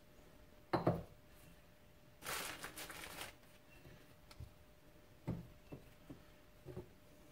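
Parts and tools being handled during a wheel-bearing install: a few light knocks and clinks, with a brief rustling hiss a little over two seconds in.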